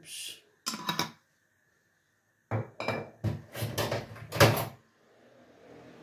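Kitchen items being handled beside the stove: a brief hiss, a knock about a second in, then a quick run of hard knocks and clatter, loudest near the end of it, like a bottle and utensils set down and a cupboard or drawer worked. A faint hiss rises in the last second.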